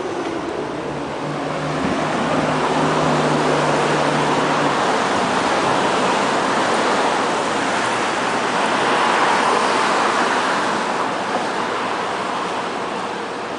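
Street traffic noise: a steady rush of passing vehicles that swells a couple of seconds in and eases near the end, with a low engine hum for the first few seconds.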